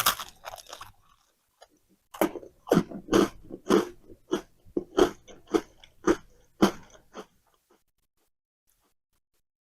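Close-up chewing of food: a bite at the start, then about ten even chews at roughly two per second that stop a couple of seconds before the end.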